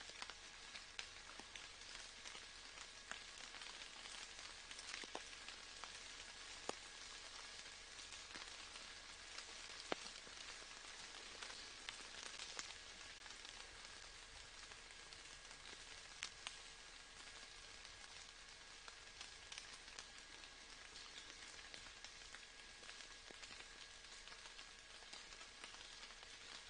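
Faint, steady rain: an even hiss with scattered single drops heard as sharp ticks.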